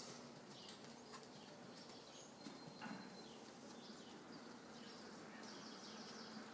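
Near silence: faint outdoor background with the soft footfalls of a horse moving over sand.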